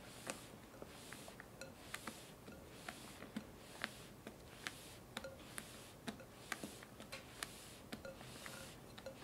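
A spatula folding a thick, creamy strawberry cream-cheese mixture in a glass bowl. Soft wet swishes come about twice a second, with sharp little clicks of the spatula against the glass.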